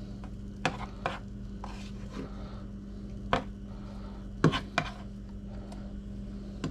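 Plastic slotted spatula knocking and scraping against a nonstick frying pan as fish fillets are turned. About six sharp clacks, the loudest about three and a half and four and a half seconds in, over a steady low hum.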